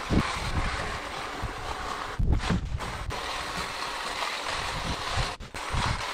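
Cordless electric hedge trimmer running, its reciprocating blades cutting through a leafy shrub, a steady buzz and rattle with low gusts of wind on the microphone.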